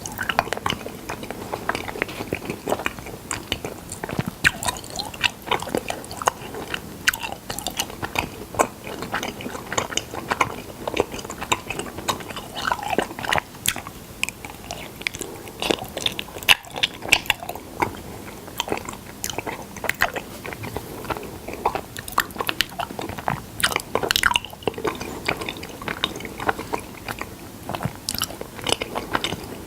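A person chewing and biting honey, with dense, irregular sharp clicks and crackles throughout.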